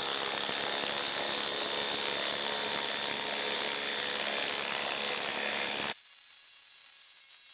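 Ryobi HP impact driver hammering a 6-inch lag screw into dense wood at full trigger, a steady loud rattle under load. It stops abruptly about six seconds in.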